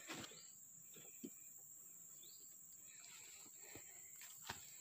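Near silence: faint, steady, high-pitched chirring of insects, with a few soft taps scattered through it.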